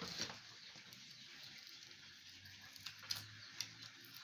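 Faint clicks and taps of hands handling a laptop screen panel and its display cable, a few light ticks over a low steady hiss.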